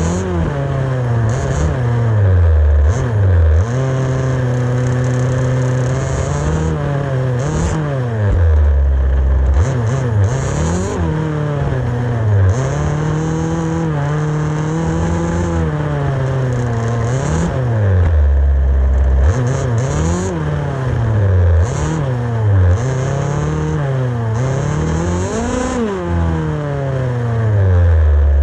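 HPI Baja 5B RC car's small two-stroke petrol engine, heard close from the onboard camera, revving up and dropping back over and over as the throttle is worked, with a few longer steady stretches at held throttle. A high hiss comes and goes with it.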